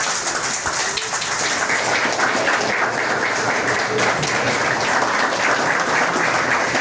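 A small audience applauding steadily.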